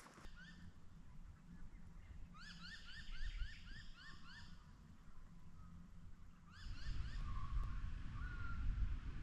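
A bird calling: a fast run of about nine rising notes, then a shorter run of the same notes near the end. A low rumble of wind on the microphone gets louder in the second half.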